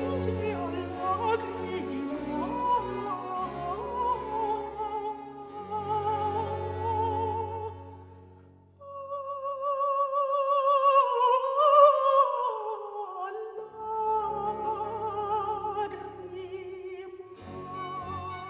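Countertenor singing a Baroque aria over a string accompaniment. About nine seconds in, the low accompaniment drops away under a long held note with wide vibrato. The note then winds down in a descending run before the accompaniment comes back in.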